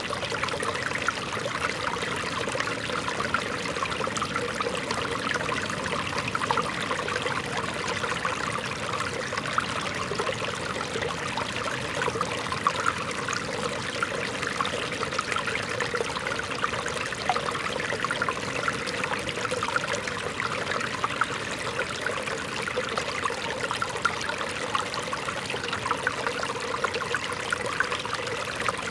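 Shallow, rocky stream flowing over stones: a steady babble and trickle of water.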